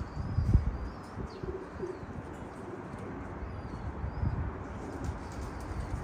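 Domestic pigeons cooing, with several short faint high chirps of small birds over a steady low background.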